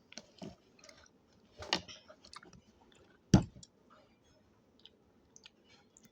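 Close-up eating and food-handling sounds: chewing with scattered small clicks and soft squishes, and a couple of sharper knocks, the loudest about three and a half seconds in.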